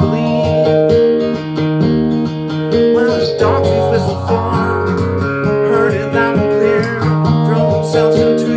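Guitar music: strummed chords, with held notes ringing over one another and changing every second or so.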